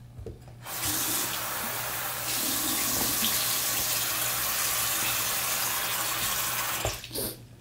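Bathroom sink faucet turned on about half a second in, water running steadily into the basin and over cupped hands, then shut off near the end, followed by a brief splash.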